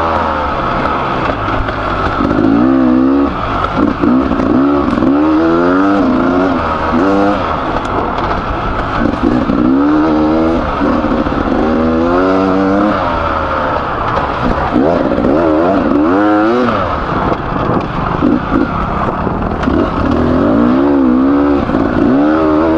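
Freshly rebuilt Beta 300RR two-stroke enduro engine being ridden hard on a trail, revving up and falling back again and again every second or two.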